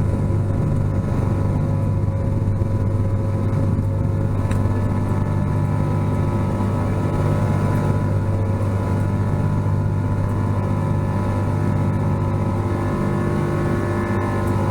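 Steady drone of a Boeing 777-200ER's jet engines heard inside the cabin: a strong low hum with several steady higher tones, even throughout.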